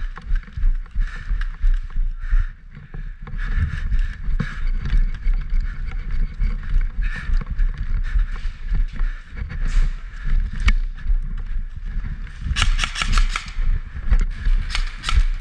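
Heavy, uneven rumbling and knocking from a body-worn camera being jostled as the player moves, with a few single sharp clicks. Near the end comes a rapid burst of airsoft gun shots.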